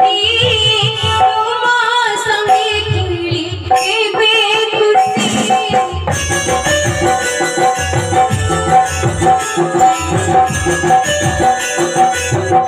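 Live stage music with drums: a singing voice with a strong vibrato over drum accompaniment, then about six seconds in it changes to an instrumental dance tune with a repeating melody and a regular drum beat.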